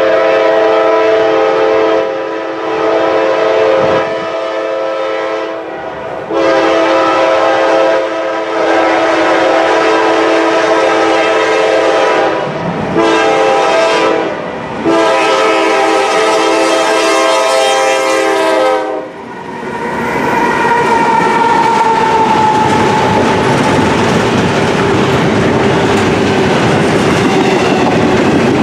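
Norfolk Southern GE Dash 9-40CW locomotive's air horn blowing a loud multi-note chord in the long, long, short, long grade-crossing warning pattern. Then the intermodal train rolls by close up: a steady rumble with clickety-clack of wheels over rail joints as the double-stack well cars pass.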